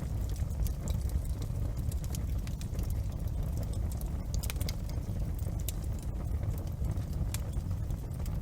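Wood fire crackling in a fireplace, with irregular sharp pops and snaps over a steady low rumble.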